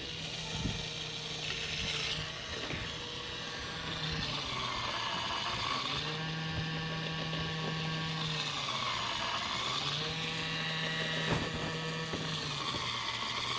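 Garbage compactor's motor running with a steady mechanical hum, dipping in pitch and recovering about every four seconds as it cycles through compressing the rubbish just loaded into it.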